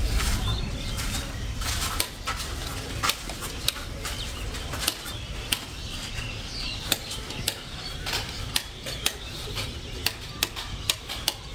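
A string of sharp, irregular clicks or taps, about one or two a second, over a low rumble that fades after the first couple of seconds.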